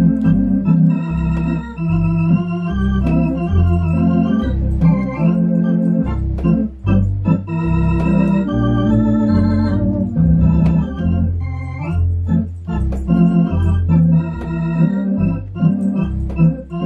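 Baldwin electronic home organ playing an old-time popular tune, with held chords over a bass line that changes note about every half second to a second.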